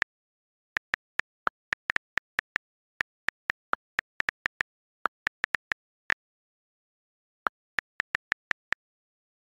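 iPhone on-screen keyboard key clicks as a message is typed letter by letter: short, sharp ticks in quick, irregular runs, a few of them slightly lower-pitched. There is a pause of over a second about two thirds of the way through.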